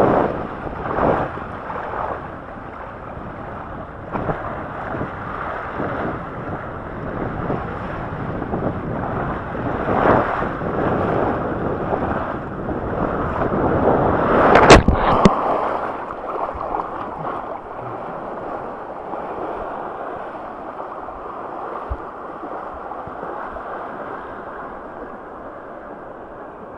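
Water rushing along a water slide under a rider, with wind buffeting the microphone and swelling in waves. About 15 seconds in comes a loud splash, and after it only a duller, quieter, steady wash of water.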